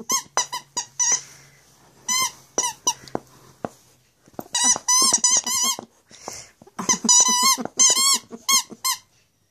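Plush squeaky toy squeaking over and over as it is bitten and squeezed: short, high squeaks that bend in pitch. They come in quick runs, with a lull a little before halfway and a long, fast run in the second half.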